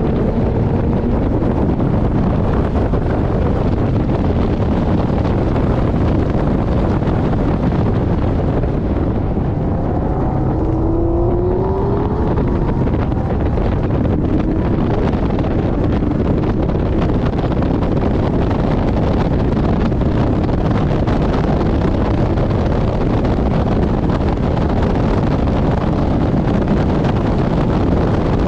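Porsche 718 Boxster GTS driven at track speed, heard as a loud, steady rush of wind on the microphone with the engine note underneath. About ten seconds in, the rush eases briefly and faint rising engine tones show through.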